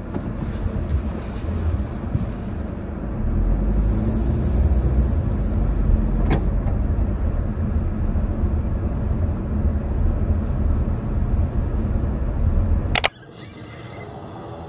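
Steady low road and engine rumble inside the cabin of a moving 2024 Mazda, growing louder about three seconds in, with a single sharp click midway. It cuts off suddenly near the end, leaving quieter room tone.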